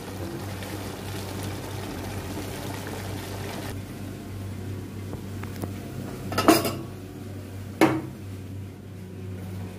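Chicken and potato curry cooking in a steel wok on a gas stove, a steady sizzle over a low hum; the sizzle quietens about four seconds in, once the wok is lidded. Two sharp metal clanks of pots and utensils follow a few seconds later.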